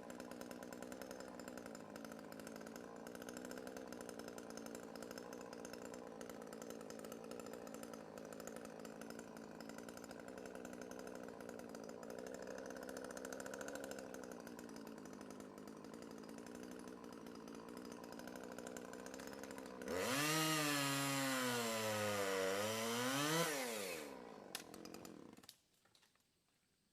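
Two-stroke chainsaw running steadily at low speed, then opened up and loud for about four seconds, its pitch dipping and recovering as it cuts into wood. It then dies away and stops about 25 seconds in.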